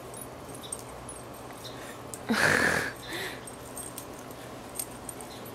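A small dog barks once, loudly, a little over two seconds in, with a shorter, fainter sound just after.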